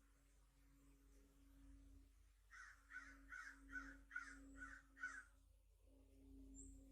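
A wild bird giving a quick series of seven harsh calls, evenly spaced, starting about two and a half seconds in.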